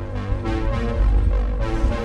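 Background music with held notes over a strong, steady bass.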